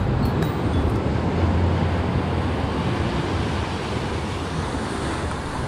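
Ocean surf washing onto a sandy beach, a steady roar of noise with a strong low rumble underneath.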